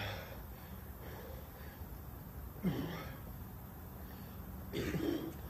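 A man breathing hard with three short grunts or gasps, straining to hold a handstand.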